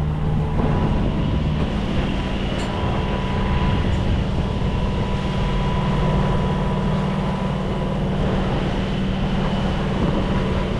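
54 hp Yanmar marine diesel inboard running steadily at about 2,200 RPM, driving the sailing yacht under way: an even low drone with a thin steady whine above it.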